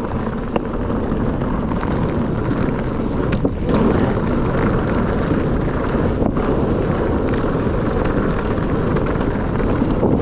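Wind buffeting the microphone and tyres rolling over a rough dirt trail as a mountain bike is ridden, with a few sharp knocks from the bike.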